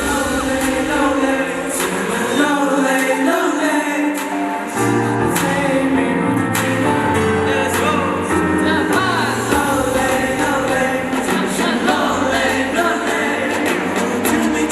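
Pop song with voices singing over a full backing track; the bass drops out for about two seconds a couple of seconds in, then comes back in.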